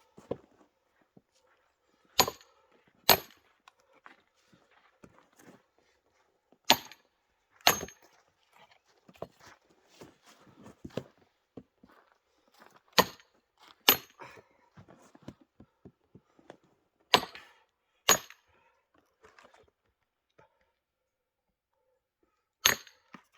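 Sharp wooden knocks of firewood being chopped: nine strikes, mostly in pairs about a second apart, with quiet rustling and handling of wood between them.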